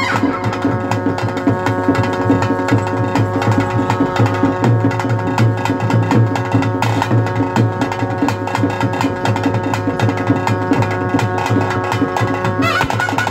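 Traditional ritual percussion music: drums beaten in a fast, steady stream of strokes over long held notes from a wind instrument. A higher held note comes in near the end.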